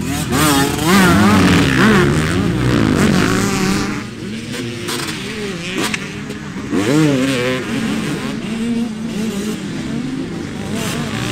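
Motocross bikes revving hard on a dirt track, engine pitch rising and falling again and again as the riders work the throttle. It is loudest in the first few seconds and again about seven seconds in.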